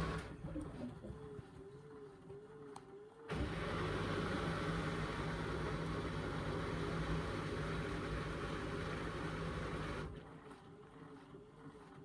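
Indesit washing machine during its rinse and intermediate spin with an unbalanced full cotton load. A faint wavering motor whine is followed, about three seconds in, by a steady hum with a rushing sound. This runs for about seven seconds, cuts off abruptly, and the faint whine returns.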